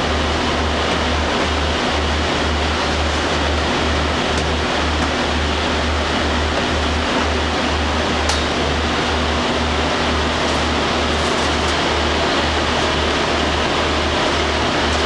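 Standing diesel express railcars of the State Railway of Thailand's Sprinter type, idling at the platform: a steady hum of engines and air conditioning with a low throb pulsing about twice a second.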